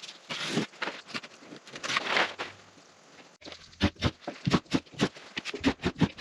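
House wrap being cut and pulled away from a window opening, rustling and tearing in swishes for about three seconds. About halfway through it gives way to a quick run of light knocks and taps, several a second.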